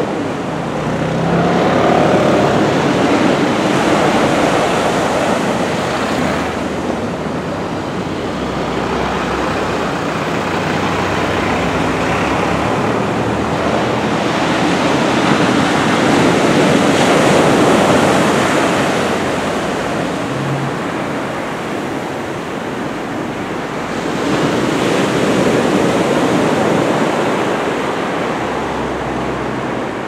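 Heavy ocean surf from a typhoon swell: a continuous wash of breaking waves and whitewater that surges louder a few times, about two seconds in, around the middle and again near the end.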